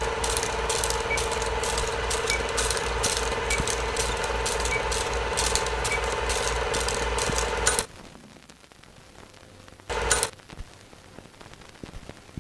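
Film projector running, a rapid clatter of clicks over a steady hum. It cuts off suddenly about eight seconds in, leaving a faint hiss, and a short burst of the clatter comes back about ten seconds in.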